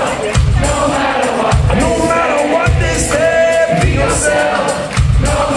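Live band music with a group of singers, recorded from within a concert audience; a low bass beat comes about once a second under the sung lines.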